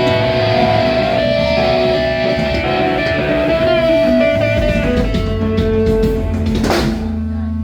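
Guitar-led rock music, an electric guitar playing long held notes over a steady low bass line.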